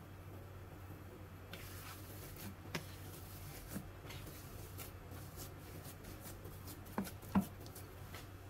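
Hands mixing and kneading a mashed-potato and chicken-mince mixture in a bowl: faint soft rustling with scattered light taps, and two sharper knocks about seven seconds in.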